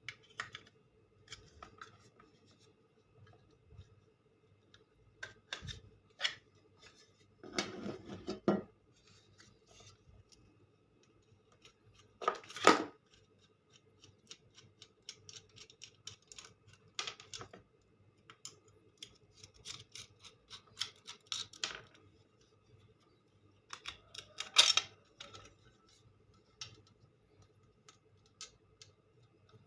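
Irregular clicks, scrapes and knocks of hand tools and small plastic and metal parts as a sewing machine foot pedal is taken apart, with three louder bouts of handling noise spread through it.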